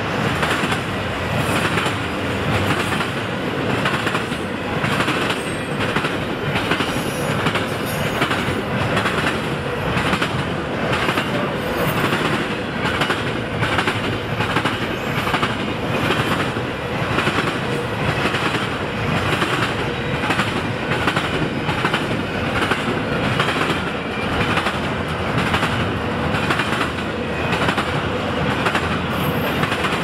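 Double-stack intermodal freight train's well cars rolling past, with a steady rolling noise and wheels clicking over the rail joints about twice a second.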